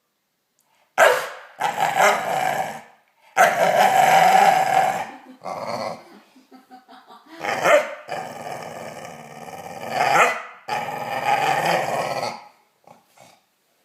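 Staffordshire bull terrier growling in play: a string of long, drawn-out, rough growls with short breaks between them, the longest lasting about two seconds.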